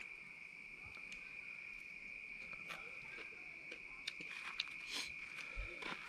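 A steady, high-pitched chorus of night insects, with a few light clicks and crunches in the second half from someone eating barbecued pork ribs off a paper plate.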